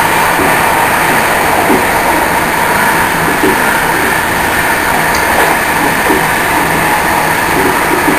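InterCity train heard from inside its last carriage while running along the line: a steady rush and rumble of wheels on rail, with a light irregular clatter from the track.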